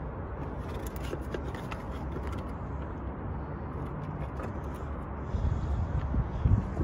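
A steady low engine-like hum from an idling vehicle, with scattered light clicks, and a few louder low thumps near the end.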